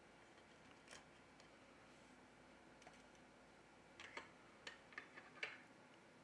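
Near silence broken by a few faint small clicks and ticks, one about a second in and a short run of about six between four and five and a half seconds in, from tweezers and an opened smartphone being handled on a work table.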